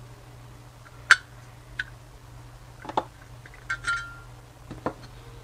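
Small brass scale-model parts being handled and set down: a handful of sharp clicks and light metallic clinks, the loudest about a second in and one ringing briefly near four seconds, over a low steady hum.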